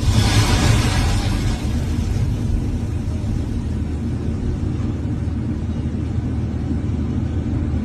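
Excavator's diesel engine running steadily with a low rumble, with a brief hissing rush over the first second or so.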